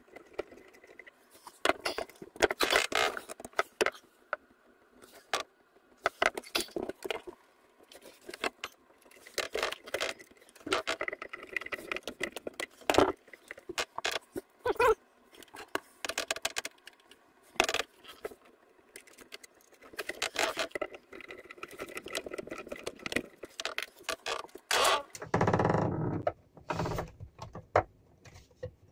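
Irregular clicks, rattles and scrapes of cable ends and a small tool being handled while battery cables are wired into the screw terminals of an MPPT solar charge controller. A louder, longer rustle comes near the end.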